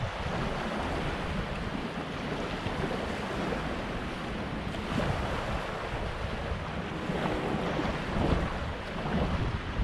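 Wind buffeting the microphone: a steady rushing noise with a low, uneven rumble, growing gustier near the end.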